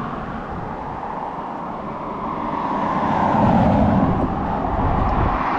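A car going past on the road, its tyre and engine noise swelling to its loudest about halfway through, over the low rumble of wind on the microphone.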